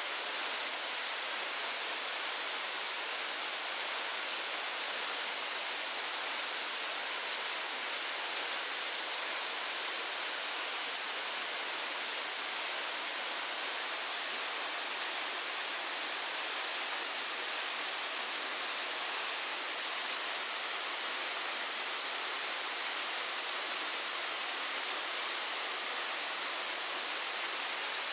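Steady, unbroken hiss of water, even throughout and mostly high-pitched.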